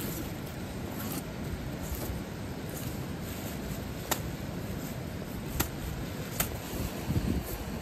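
Butcher's knife cutting along a raw lamb carcass on plastic sheeting, with three short sharp clicks in the second half over a steady low rumble.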